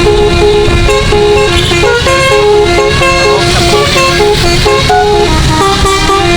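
Bus musical air horn (12-note Basuri-style telolet) playing a quick tune of short notes stepping up and down, over a low rumble.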